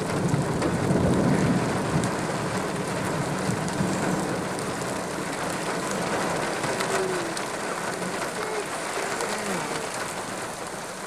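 Heavy rain pouring steadily during a thunderstorm, with a low rumble of thunder that swells in the first couple of seconds and then slowly dies away under the rain.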